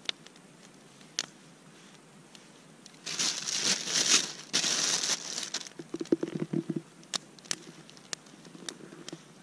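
A plastic bread bag crinkling as it is handled, in two loud bursts about three seconds in, followed by a short run of lower crunching and a few scattered small clicks.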